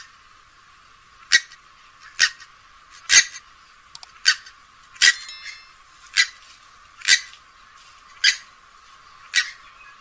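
Grey-headed swamphen giving a series of short, sharp calls, about one a second.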